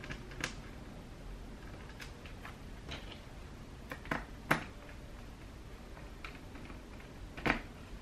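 Light, scattered clicks and taps of a small screwdriver and fingertips on an HP 15-BS laptop's plastic bottom case as screws are driven in under the peeled-back rubber feet. The louder clicks come about four and a half seconds in and again near the end.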